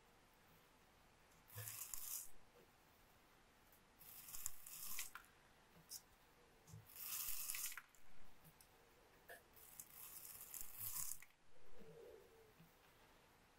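Seed beads hissing and rustling in a spinning bead spinner bowl as a wire end is held in them to scoop them up, in four short faint bursts.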